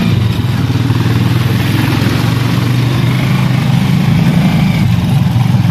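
Small motorcycle engine of a passenger tricycle running steadily under way, heard from inside the covered passenger cab.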